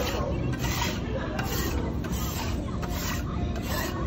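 Metal spatula scraping across a restaurant's flat iron griddle plate in repeated rasping strokes, pushing cooked-on residue along the surface.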